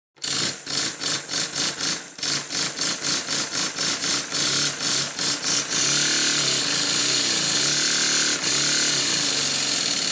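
Stuart twin-cylinder vertical model steam engine starting up on compressed air. The exhaust puffs start at about three a second and quicken until, about six seconds in, they run together into a steady rushing chuff as the engine reaches speed. This is a test run after re-sizing one cylinder's slide valve.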